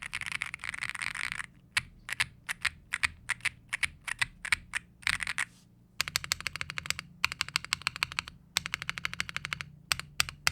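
Womier RD75 75% mechanical keyboard in stock form being typed on. At first the keystrokes come fast and run together, then single keystrokes follow about half a second apart, then fast typing resumes in bursts with short pauses.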